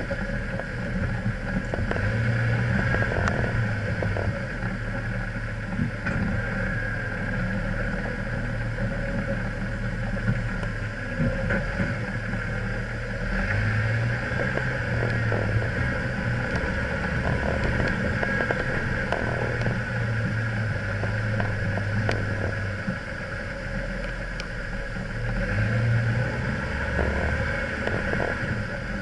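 An off-road vehicle's engine running as it drives slowly over a riverbed of loose stones, its note rising and falling. Tyres crunch and knock on the rocks throughout.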